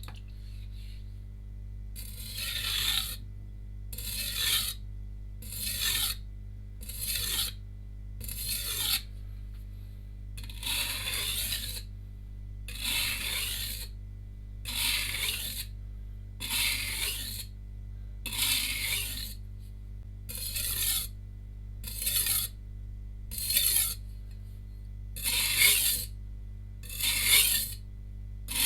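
Shun VG10 Chinese cleaver's blade scraping across a Suehiro Debado LD 180-grit coarse whetstone in even, repeated strokes, one about every one and a half seconds. These are light finishing strokes on the coarse stone after the chipped edge has been ground out.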